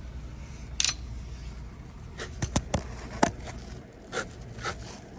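Handling noises: a series of sharp clicks and light scrapes, about eight in all, over a low steady hum that fades out near the end.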